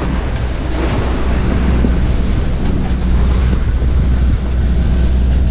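Wind buffeting the microphone over the rush of waves along the hull of a sailing yacht under way, with a steady low rumble throughout.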